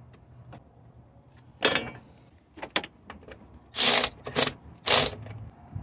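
Small cordless power tool spinning a socket on the 10 mm battery hold-down bracket bolt, run in about five short bursts, the last two the loudest.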